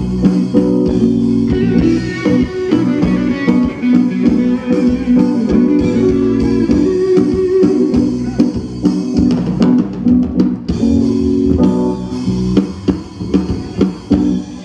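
Band music: guitar over drum kit and bass, with a short run of rapid drum hits about two-thirds of the way through.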